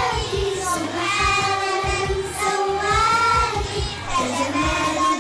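A group of young children singing a Mother's Day song together in Arabic, over a music backing with a steady beat.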